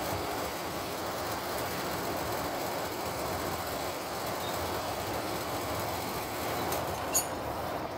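Steady running noise of a vehicle engine out of sight, with one sharp click about seven seconds in.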